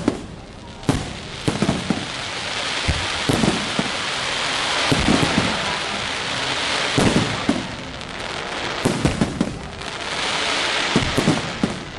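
Aerial firework shells bursting in a series of booms every second or two, over a continuous crackling hiss from the glittering stars that swells in the middle and again near the end.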